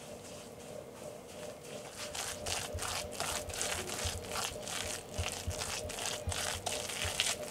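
Hand food preparation with a kitchen utensil: rapid rhythmic scraping strokes, about four a second, that start about two seconds in, each with a soft low thump.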